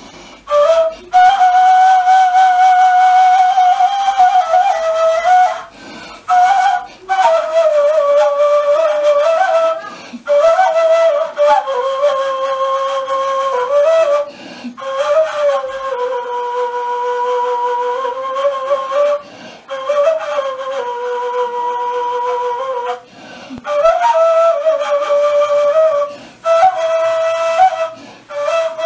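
Kaval, the Turkish end-blown shepherd's flute, playing a solo melody of long held notes that bend between pitches, in phrases broken by short pauses.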